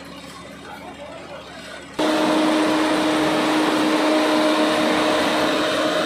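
Faint background noise, then about two seconds in a loud, steady engine drone with a constant hum cuts in abruptly and keeps running.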